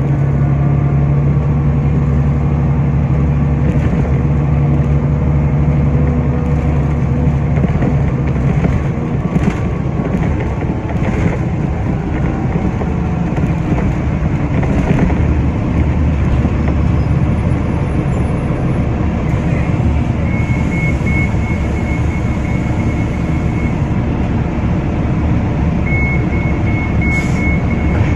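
Bus engine and tyre rumble heard from inside the moving bus. A steady engine hum for the first several seconds gives way to an even road rumble. A high-pitched rapid beeping sounds twice in the second half.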